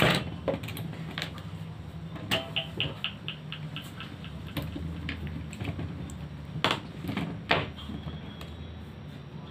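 Light plastic clicks and taps as a battery pack is pressed and fitted into a mosquito racket's hollow plastic handle, with a quick run of about eight ticks around three seconds in, over a low steady hum.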